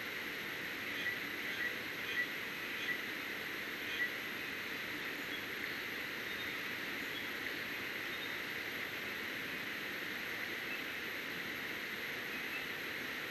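Steady outdoor hiss with a handful of short, high bird chirps in the first four seconds and a few fainter ones after.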